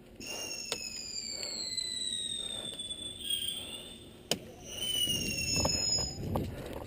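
A long, falling whistle lasting about three seconds, then a second shorter one about five seconds in, with a few sharp snaps of airsoft gunfire scattered through.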